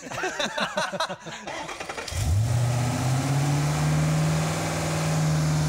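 Ford Boss 302's 5.0-litre V8, newly fitted with a twin-turbo kit, cranking for about two seconds, then catching and settling into a steady idle. This is its first start after the turbo install.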